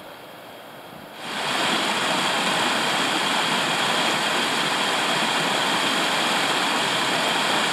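A fast-flowing upland stream rushing and splashing over rocks, a loud steady rush that comes in suddenly about a second in, after a quieter hiss.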